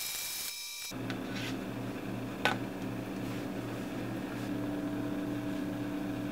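Steady low hum with a faint regular pulse and a few steady overtones, with a single light click about two and a half seconds in. A short burst of hiss fills the first second.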